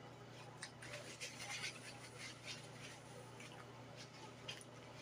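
Quiet, wet mouth sounds of a person chewing food, a run of soft smacks and clicks, thickest about one to two and a half seconds in, then a few single ones.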